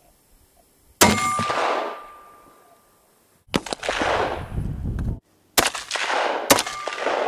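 Four centerfire rifle shots, about a second, three and a half, five and a half and six and a half seconds in, each followed by a long rolling echo. A faint ringing tone hangs on after the first and last shots.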